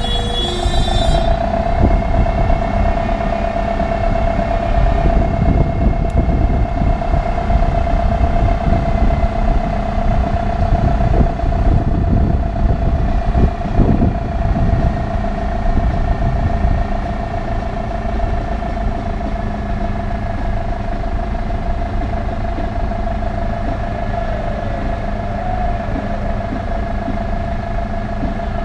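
1977 VW LT 31 fire service equipment truck driving at parade pace, its engine and road noise running steadily with a steady whine, heard with wind buffeting the microphone.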